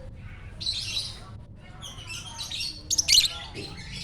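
Lovebird chattering in harsh, rapid high squawks and chirps, with a loudest burst about three seconds in.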